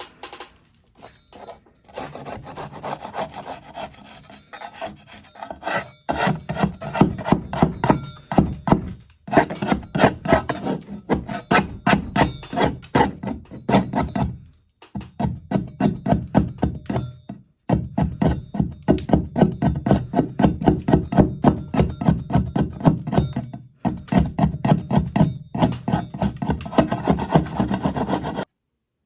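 Metal okonomiyaki spatula scraping a sand-finish wall coating off, in quick repeated rasping strokes. The strokes come in bursts with short pauses and stop abruptly near the end.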